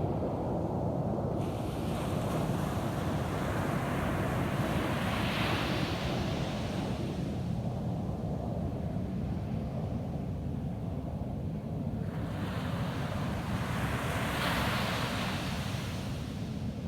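Ocean surf breaking on a beach: two waves swell up in a hiss and fade away, about nine seconds apart, over a steady low rumble.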